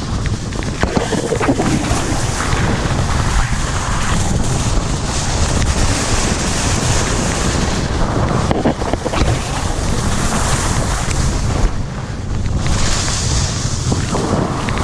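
Wind rushing over the camera microphone during a ski descent, with a low buffeting rumble throughout. Skis hiss over the snow, the hiss swelling and fading several times as the skier turns.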